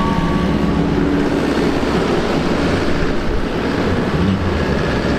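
Demolition derby car engines running, a loud, steady low-pitched din with no separate impacts.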